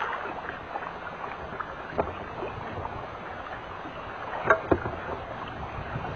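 Steady wind and water noise on an open fishing boat, broken by a few sharp clicks and knocks from rod and reel handling during a cast and retrieve, the loudest two close together about four and a half seconds in.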